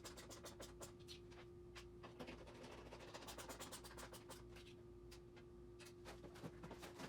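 Faint rapid clicking and scratching of screws being driven by hand to fit the stand base to the TV, in runs of quick ticks, over a steady faint hum.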